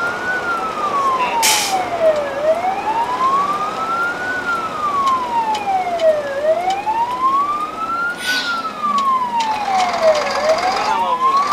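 Fire engine siren on a slow wail, rising and falling about once every four seconds over the truck's engine and road noise, with two short bursts of hiss.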